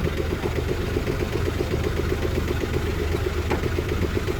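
Diesel engine of the digging machinery running at a steady speed, with an even, rapid pulsing beat over a low drone.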